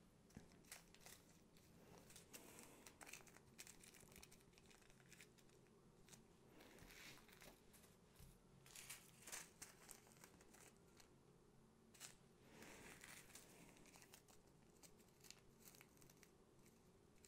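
Faint crinkling of small zip-lock plastic bags of diamond-painting drills being handled and pressed shut, coming and going in short spells.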